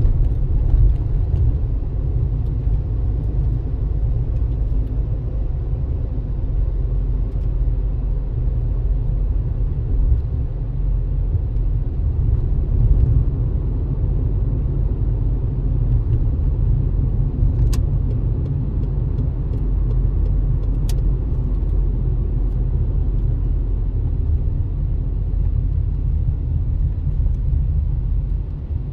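Steady low rumble of a car on the move: road and engine noise. Two faint short ticks come past the middle.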